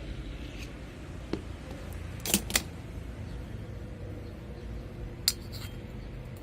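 Light clicks and clinks of small fan-motor parts being handled, with a sharp pair about two and a half seconds in and another near the end, over a low steady hum.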